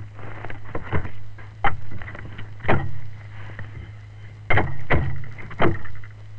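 Sharp wooden knocks and clatter, about six in all, as lids and slats are fitted onto wooden specimen boxes, over a steady low hum.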